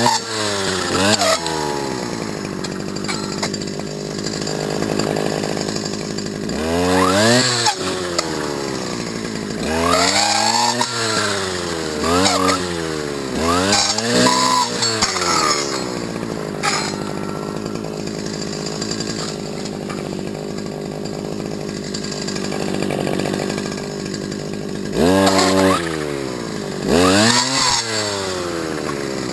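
Stihl FS250 brush cutter's two-stroke engine idling and being revved up several times, each rev a quick rise and fall in pitch, with a longer spell of steady idle in between.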